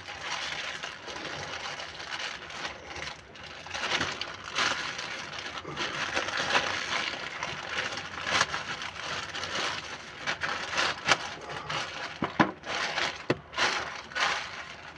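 Cardboard box being forced open by hand: irregular tearing, crackling and rustling of the packaging, with sharp cracks and clicks scattered throughout.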